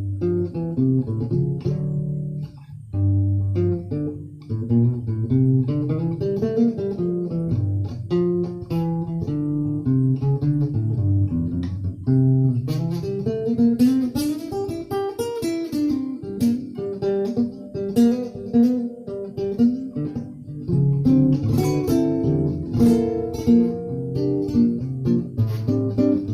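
Guitar music: plucked guitar notes over a low bass line, with quick runs of notes in the middle and near the end.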